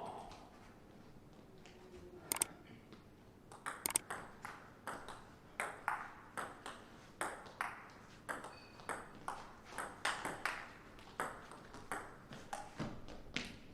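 Table tennis ball clicking off the table and rackets in a rally: a few sharp ticks, then from about three and a half seconds in a steady run of them, roughly two a second.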